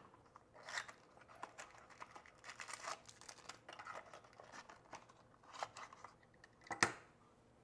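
A small paperboard box being opened by hand and a power adapter with its coiled cable slid out: faint scattered rustling and scraping of cardboard, with one sharper knock near the end.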